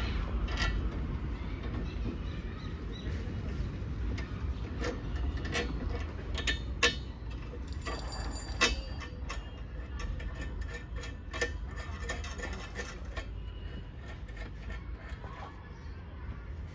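Irregular clicks and knocks of hand work on a car's CNG tank mounting while rubber strips are fitted under it, with two louder knocks about midway, over a steady low rumble.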